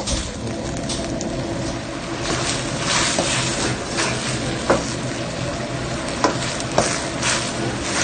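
Battered chicken in sweet and sour sauce sizzling in a steel wok as it is stirred and tossed, with the metal ladle scraping and clinking sharply against the wok several times in the second half. A steady low hum runs underneath.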